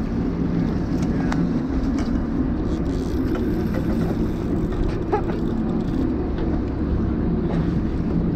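Fishing boat's engine running with a steady low hum, mixed with sea wash against the hull. A few faint ticks come through about a second, two seconds and five seconds in.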